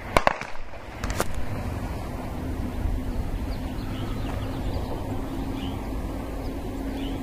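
Distant pistol shots from a nearby range, four sharp cracks in the first second or so, which sound like a 9mm. After them comes a steady low rumble.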